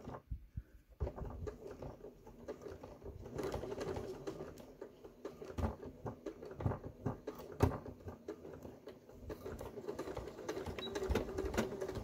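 Electric sewing machine stitching slowly in short stop-and-start runs, forward and back, as it sews a fabric end tab onto a zipper. It starts about a second in.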